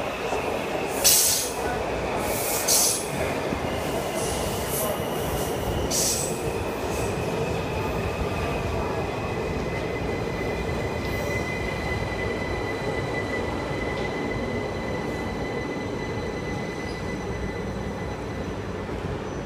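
Washington Metrorail train of Breda 3000, Alstom 6000 and CAF 5000-series cars pulling into the station with a steady rumble of wheels on rail. There are two sharp bangs about one and three seconds in. A thin high wheel squeal holds from about six seconds in and fades out by about fifteen seconds.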